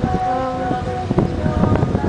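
Wind buffeting the microphone, with a person's voice holding one drawn-out sound near the start and short voice sounds later.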